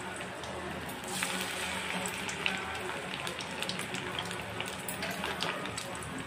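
Chicken pakoda pieces deep-frying in hot oil in a kadai: a steady sizzle with many sharp crackles and pops, busier from about a second in.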